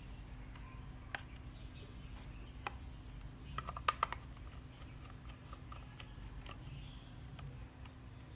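Scattered small clicks and taps of a small screwdriver working a screw out of a plastic doorbell casing, with a sharper cluster of clicks about four seconds in. A faint steady low hum sits underneath.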